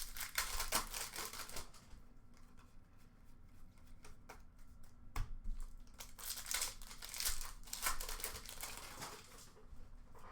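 Plastic wrapper of a hockey card pack crinkling as it is handled and torn open, in two spells with a few sharp clicks between.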